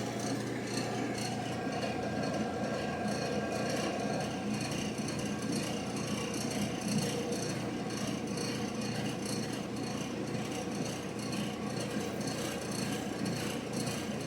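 Old General Electric gas dryer running steadily, its motor and drum turning with a steady hum and a rubbing rattle. No click is heard from the gas valve: only the igniter comes on while the valve stays shut, which the repairer takes for a failed gas valve coil.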